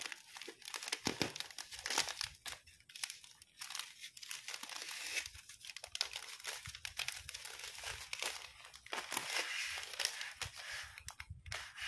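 Shiny plastic bouquet wrapping film and foil spice sachets crinkling and crackling as they are handled and gathered, in irregular bursts of sharp crackles.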